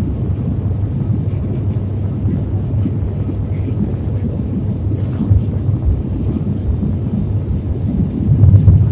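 Steady low rumble of an airliner's engines and airflow heard inside the passenger cabin during descent, growing louder near the end.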